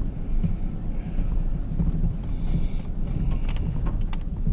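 Vehicle running with a steady low rumble, heard from inside the cab, with a couple of sharp clicks or knocks near the end.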